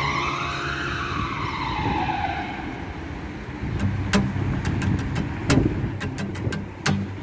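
Street sounds: a high whine glides up and then falls away over the first two seconds or so. After it comes the low hum of a vehicle engine, with sharp, irregular clicks.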